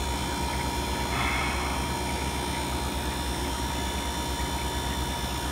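Manitowoc Indigo ice machine running steadily just after restart, in its ice-making mode: a steady low hum with a faint high tone.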